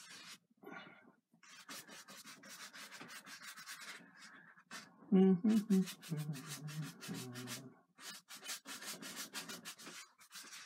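A one-inch brush scrubbing across a canvas in quick repeated strokes, blending wet oil paint. About halfway through, a brief low voice-like hum is the loudest sound.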